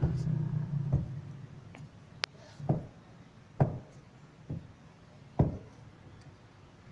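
Handling noise: a low hum over the first second, then a series of dull knocks roughly a second apart, with one sharp click between them.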